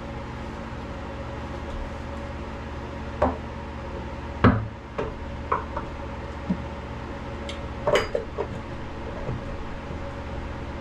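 Metal clanks and knocks as a heavy raw water pump is worked into place on its mounting studs on a Cat C32 marine diesel: a handful of separate knocks, the loudest about four and a half seconds in and a quick cluster near eight seconds, over a steady machinery hum.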